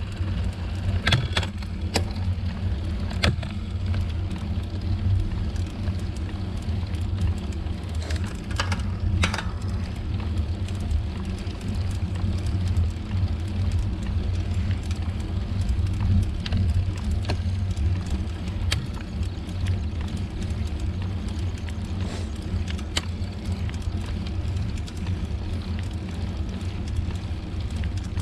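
Steady low wind rumble and road noise from riding along a road at speed, with a few sharp clicks or rattles about a second in and again around nine seconds in.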